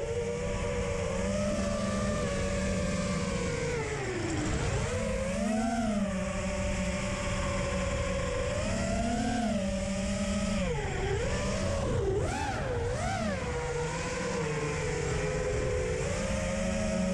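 Eachine Wizard X220 racing quadcopter's brushless motors and propellers whining, the pitch rising and falling with the throttle. It dips low about four seconds in and swings quickly up and down a few times around twelve seconds in, over a low rushing noise.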